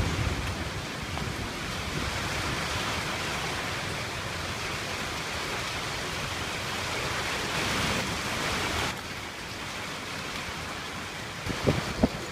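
Steady rushing hiss of heavy rain and wind in a thunderstorm. The hiss drops off suddenly about nine seconds in.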